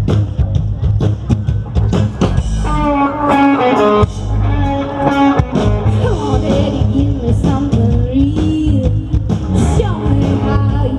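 Live rock band playing loud through a PA with a steady beat. A voice sings long held notes from about two and a half seconds in.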